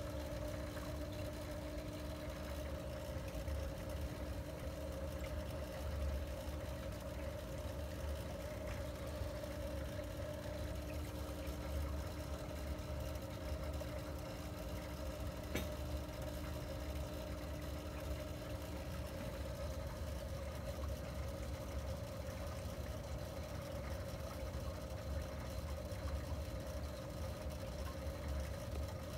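Aquarium pump running: a steady low hum with a faint, constant whine over it. A single faint click comes about halfway through.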